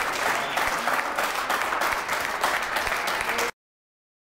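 A small crowd clapping and applauding, a dense patter of many hands, which cuts off suddenly near the end.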